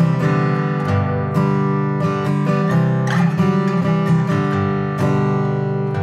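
Taylor 322ce 12-fret acoustic guitar strummed, its chords ringing between strokes, with a few harder strokes standing out.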